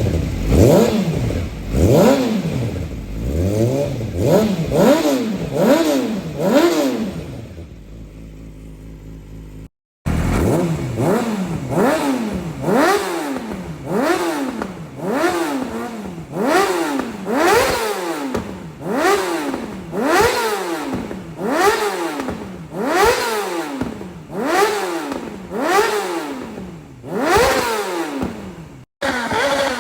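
2006 Yamaha R6's inline-four engine revved in repeated blips, pitch rising and falling about once a second, exhausting through headers with the muffler box removed and no silencer: way deeper and way louder. It settles briefly to idle near the quarter mark, then the blips resume.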